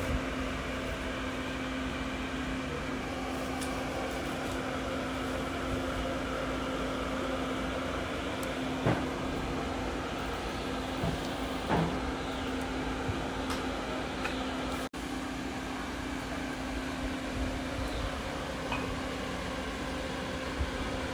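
Small electric fan running with a steady hum, under a few short knocks of a knife and pancake wedges on a wooden cutting board.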